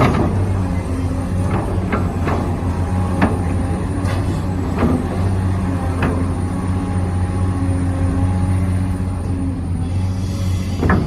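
Small electric motors of radio-controlled construction models, an excavator and a dump truck, running with a steady hum, with a handful of sharp clicks and knocks scattered through.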